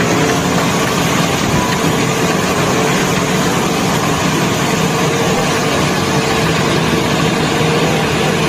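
Concrete mixer truck's diesel engine running steadily while the drum discharges concrete down the rear chute.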